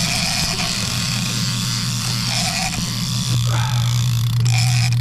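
Drag of a heavy game-fishing reel buzzing steadily as a hooked southern bluefin tuna takes line on a run, over a steady low hum and wind and sea noise.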